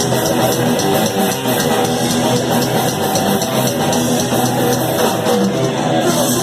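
Live thrash metal band playing an instrumental passage: distorted electric guitars and bass over fast, driving drums and cymbals, loud and continuous.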